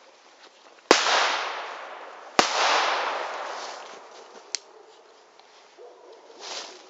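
Two loud firecracker bangs about a second and a half apart, each followed by a long rolling echo that fades away, then a smaller sharp crack a couple of seconds later.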